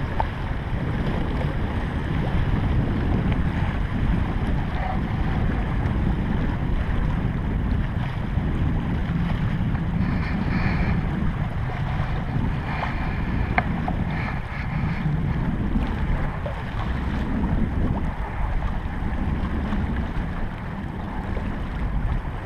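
Steady wind noise on the microphone over a small open fishing boat, with water washing against the hull.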